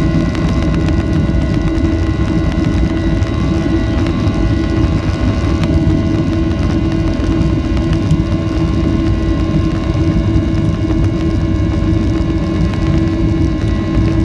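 Cabin noise of a Boeing 737-800 on takeoff: its CFM56 turbofans at takeoff thrust give a loud, steady rumble overlaid with several steady whining tones.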